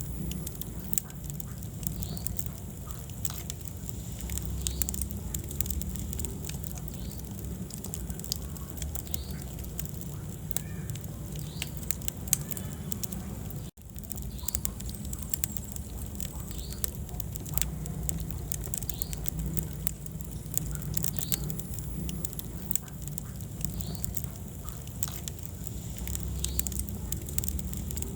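Wood fire burning in a fireplace, crackling with frequent sharp pops over a low rumble of the flames. The sound cuts out for an instant about halfway through.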